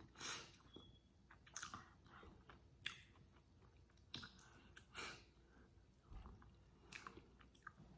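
Faint, wet chewing and soft mouth smacks from someone eating saucy chicken wings, with scattered short clicks as meat is pulled from the bone and fingers are licked.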